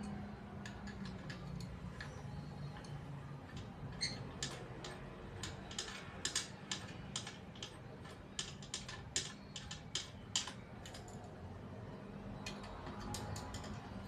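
Irregular light clicks and taps, thickest through the middle, over a faint low hum.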